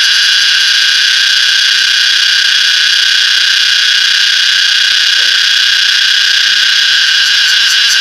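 A cicada singing at very close range: a loud, steady, unbroken buzz.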